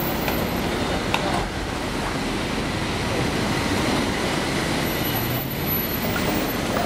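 Steady rumble of a San Francisco cable car rolling on its rails as it moves away downhill, mixed with cars driving over the tracks; one small click about a second in, and a car passes close near the end.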